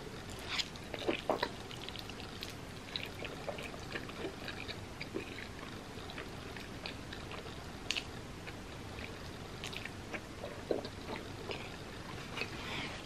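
A person slurping and chewing saucy black bean noodles, with wet smacking mouth sounds throughout. The loudest slurps come about a second in.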